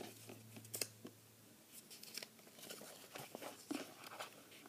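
Faint paper rustling with scattered light taps and crinkles as a folded sheet of paper with wet glitter glue inside is pressed flat by hand.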